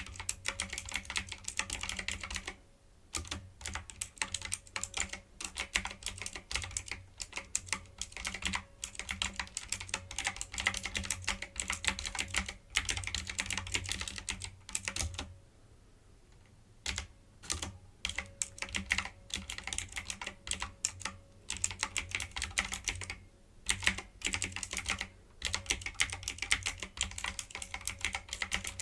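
Fast typing on a typewriter-style computer keyboard, dense runs of sharp key clicks broken by a few short pauses.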